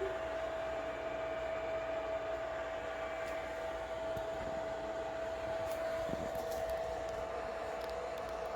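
Small electric fan whirring steadily, with one steady mid-pitched tone over an even hiss.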